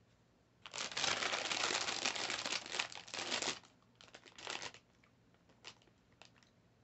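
Crinkly wrapper or packaging being handled: about three seconds of dense crinkling and crackling, a shorter bout about four seconds in, then a couple of small clicks.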